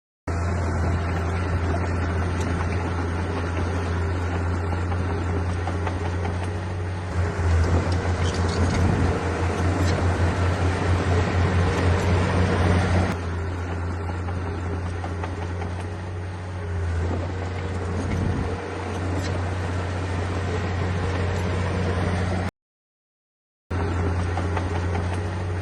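Diesel engine of a heavy earthmoving machine running steadily, getting louder with a fast pulsing beat for several seconds in the middle as it works under load. The sound drops out for about a second near the end.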